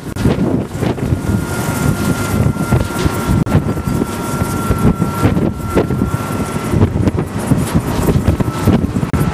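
Gusty wind buffeting the microphone in uneven surges. A thin, steady high whine runs through the middle few seconds.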